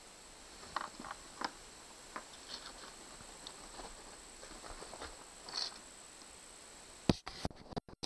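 Faint taps and scrapes of metal multimeter test probes and a CR2032 coin-cell battery being handled on a wooden table, with a few sharp clicks near the end.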